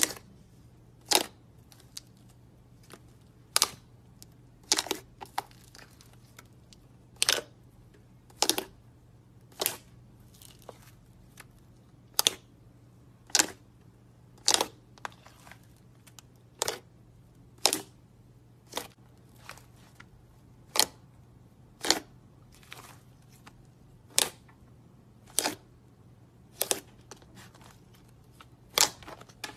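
Fluffy white slime being poked and pressed by fingers, giving short sharp pops and clicks roughly once a second, with the odd longer gap.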